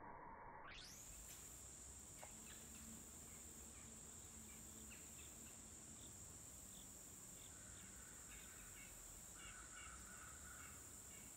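Faint riverside ambience: insects trilling steadily at a high pitch, starting less than a second in, with short bird chirps scattered through.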